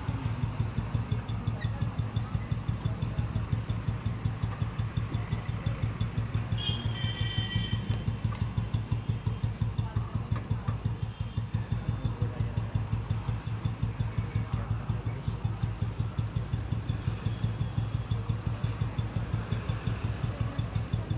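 Motorcycle engine idling steadily, a regular low pulsing beat of about four pulses a second.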